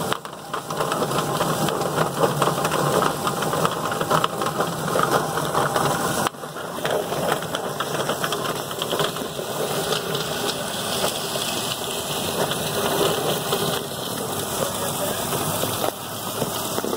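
Yardbird drum-style chicken plucker running: its motor spins the bottom plate while a scalded chicken tumbles and slaps against the rubber plucking fingers, a steady busy clatter. The sound breaks off abruptly for a moment about six seconds in.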